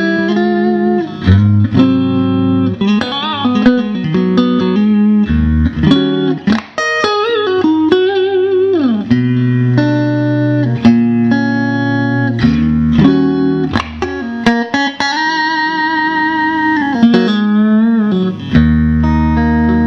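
Fender Stratocaster 'Lenny' electric guitar played through a Fender Vibrolux Reverb amp. It plays single-note licks with string bends and wide vibrato over ringing low notes.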